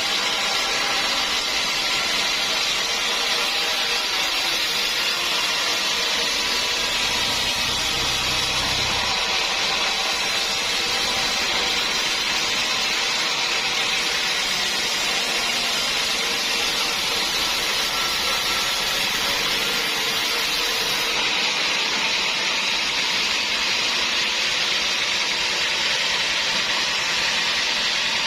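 Sawmill bandsaw running steadily as it cuts through dense acacia wood: a continuous hissing whine with no break, and a short low hum about eight seconds in.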